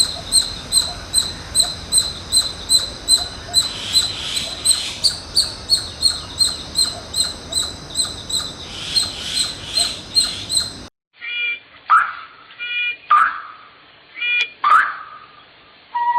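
A young bird peeping: high, thin calls about twice a second that stop abruptly about eleven seconds in. After a cut, a few shorter, lower calls follow, roughly one a second.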